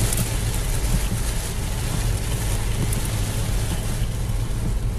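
Steady noise inside a car driving on a wet road in heavy rain: a low rumble from the tyres and engine under an even hiss of rain and spray on the windscreen.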